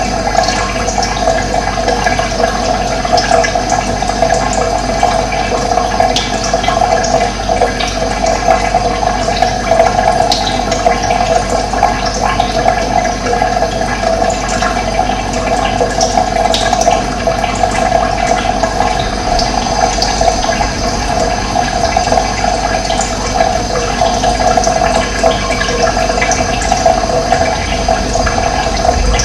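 Running water, a steady, loud flow that does not change.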